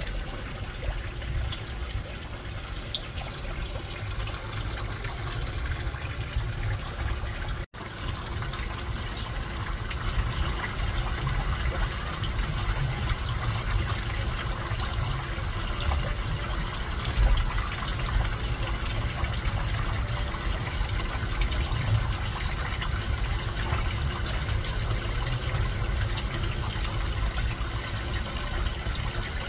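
Aquarium water trickling steadily, with a low rumble underneath; the sound briefly cuts out once about eight seconds in.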